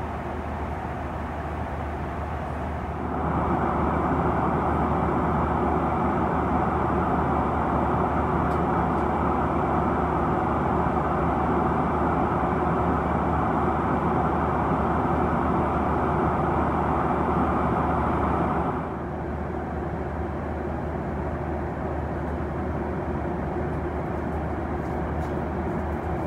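Steady cabin noise inside a Boeing 737-900ER at cruise altitude: an even rush of engine and airflow noise over a low hum, louder from about three seconds in until about nineteen seconds in.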